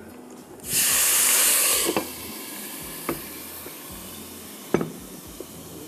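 Water poured from a glass jug into hot oil with curry leaves and ground spices in a pan: a sudden loud sizzle about a second in that lasts about a second, then settles into a steady, quieter sizzle. A few light clicks come in between.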